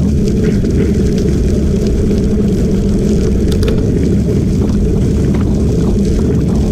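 Loud, steady wind buffeting the microphone while moving along a gravel trail at about 14 mph, mixed with the low rumble of tyres on gravel and a few faint clicks.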